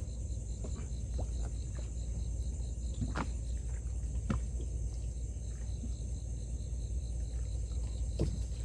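A steady low rumble with a high, fast, evenly pulsing trill of insects above it, and a few sharp knocks or clicks at irregular moments, the clearest about three, four and eight seconds in.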